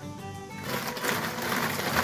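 Background music with plucked, pitched notes; about half a second in, a louder rough, rapidly fluttering noise joins it and carries on.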